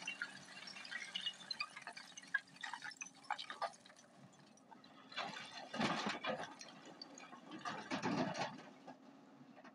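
Hyundai 210 hydraulic excavator's bucket scraping and clattering through broken stone, then a load of rocks pouring into a steel dump-truck bed in two rushes, about halfway through and again near the end. The excavator's engine runs steadily and faintly underneath.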